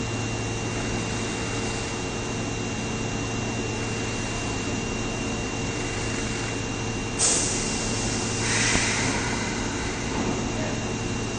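Subway train's electrical equipment humming steadily with a thin high whine, in a station. Two short hissing bursts, one about seven seconds in and another about a second and a half later.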